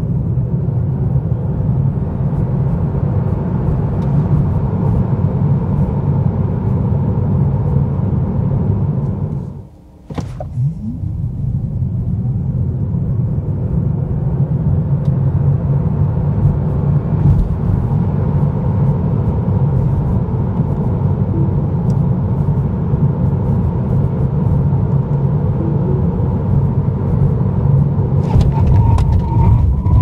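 Tyre and road noise of a Tesla Model 3 Highland RWD on Michelin e-Primacy tyres, heard inside the cabin at speed: a steady low rumble. The noise drops away briefly about ten seconds in, and a few clicks come near the end.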